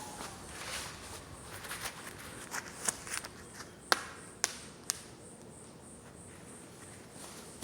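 Scattered sharp clicks and taps over a faint background, the four loudest between about three and five seconds in.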